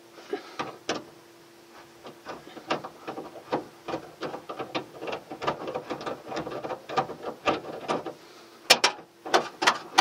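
Ratchet wrench clicking in quick, irregular runs as it turns the nut on a dryer drum roller's shaft, mixed with small metal knocks of the tool on the fitting. The clicks come louder and faster near the end, and a faint steady hum sounds during the first two seconds.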